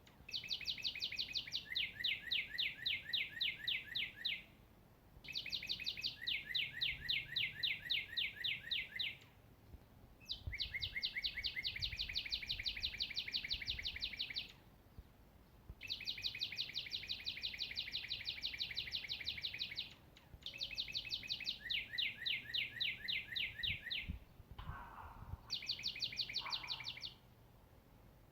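A songbird singing the same long, rapid trill over and over, six times in a row with about a second between songs. Each trill is an even string of fast high notes that steps down to a lower pitch partway through.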